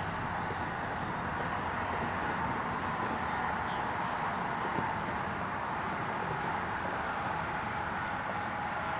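Steady outdoor background noise: an even rumble and hiss with a faint steady hum, unchanging throughout and with no distinct events.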